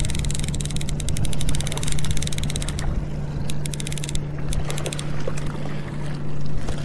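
Boat motor running steadily, a constant low hum under a dense noisy wash.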